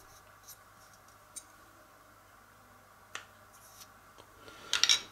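Small hard-plastic model-kit parts being handled: a few faint clicks, then a louder short clatter near the end, over a low steady hum.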